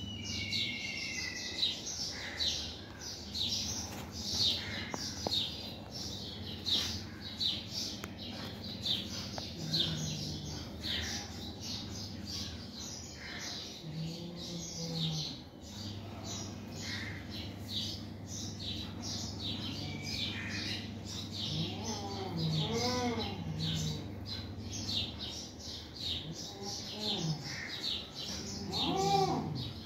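Small birds chirping busily throughout over a steady low hum. About two-thirds of the way in, cats begin low, drawn-out yowls that rise and fall in pitch, returning louder near the end: the caterwauling of two cats squaring off.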